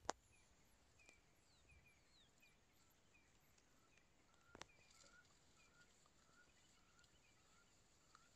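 Near silence with faint, repeated short chirping calls, and two sharp clicks: one at the very start and one about halfway through.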